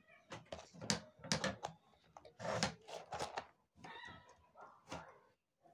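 Sketch pen scratching over paper in short strokes, with light handling taps and rustles on a wooden table, in several brief bursts.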